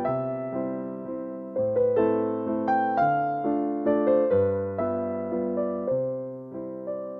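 Gentle background piano music: a slow melody of single notes over low chords, each note struck and left to ring and fade.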